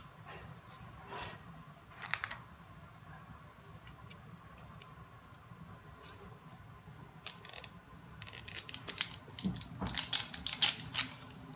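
Plastic wrapping being crinkled and torn off a small plastic surprise-toy capsule, with scattered clicks and crackles that grow busier and louder over the last few seconds.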